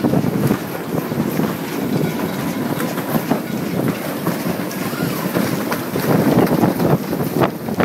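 Wind buffeting the microphone in a steady, gusty rush, with a few sharp ticks near the end.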